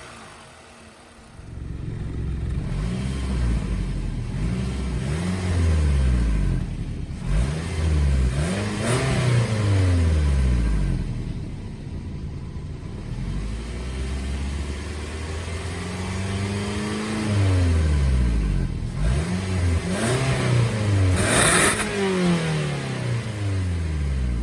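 Toyota 2AZ-FE 2.4-litre four-cylinder engine of a 2002 Camry revving again and again, its pitch climbing and then dropping back. It starts quiet and picks up about a second and a half in, with two short noisy flares along the way.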